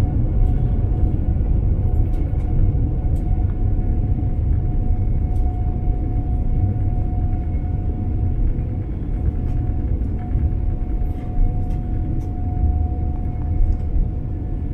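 Airliner turbofan engines at takeoff power: a loud, steady low rumble with a steady whine above it.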